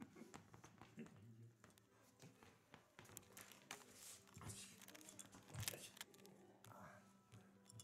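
Faint rustling, crinkling and small clicks in a quiet room, with a louder rustle a few seconds in and again about two thirds of the way through.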